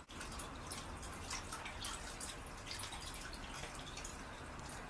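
Quiet room tone with scattered faint, irregular ticks.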